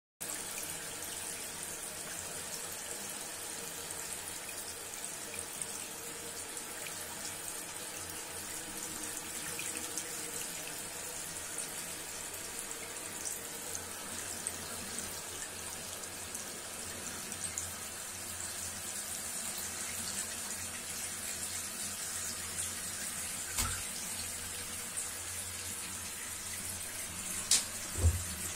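Steady hiss of a water tap running, with a few short knocks near the end.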